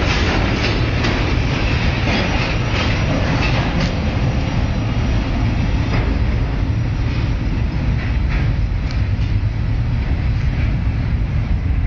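Freight train wagons rolling past on the rails: a steady, loud rumble of wheels on track with a few scattered clicks from the rail joints.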